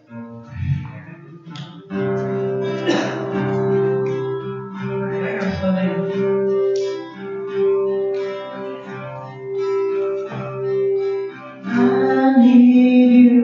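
Acoustic guitar strummed in chords as a song starts, about two seconds in, with a voice singing near the end.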